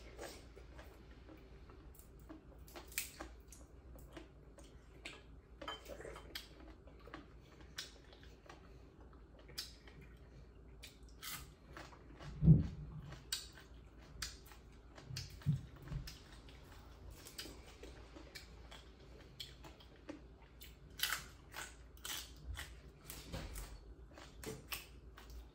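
Two people chewing and biting food, boiled pork offal and raw green vegetables, with scattered short crunches and mouth clicks and light clinks of dishes. A dull thump about twelve seconds in is the loudest sound, with a smaller one a few seconds later.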